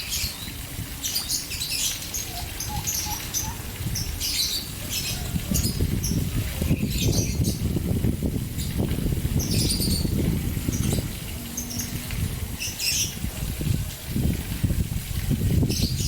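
Fountain water splashing, with caged birds giving many short, high chirps throughout.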